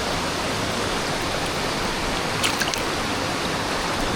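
Steady noise of falling water from a small waterfall and its stream, with a quick cluster of sharp clicks about halfway through.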